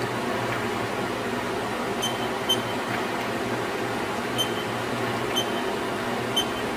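Short, high key-press beeps from a Haas Mini Mill CNC control panel keypad, five of them spaced unevenly, over a steady hum.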